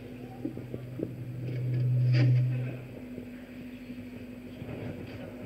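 A low, steady hum that swells to loud about two seconds in and cuts off about a second later, over faint room noise with a few light clicks.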